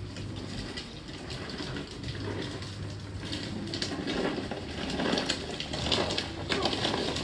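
A cloth rubbing over a car's painted body panel: irregular swishing strokes that grow louder about four seconds in, as the paint is wiped after hardened tree sap has been scraped off.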